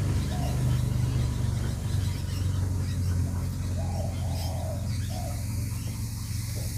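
Short bird calls a few times over a steady low hum.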